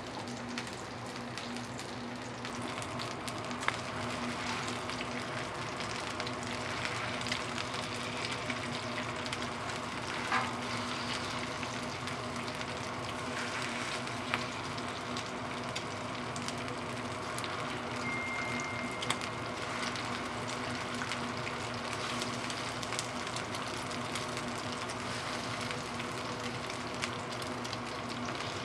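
Korean pancakes (jeon) frying in oil on a griddle, a steady sizzle with a low steady hum underneath and a few sharp clicks scattered through.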